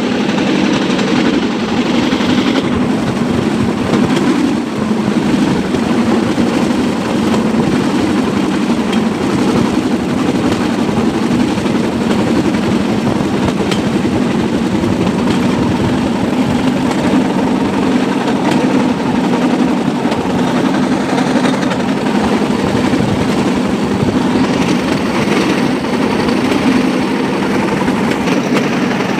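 Bamboo train (norry) running steadily along the rails: the drone of its small engine mixed with the rattle of its wheels on the track.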